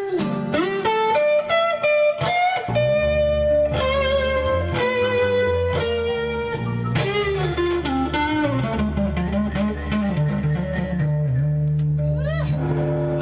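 Live band playing the close of a song: guitar playing a lead line of picked and bent notes over bass guitar, settling into a long held chord near the end.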